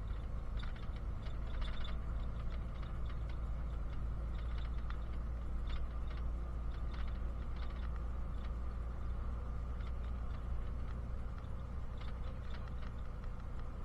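Bus engine and road rumble heard from inside the passenger cabin, steady and low, with light irregular rattles and clicks from the bus's fittings.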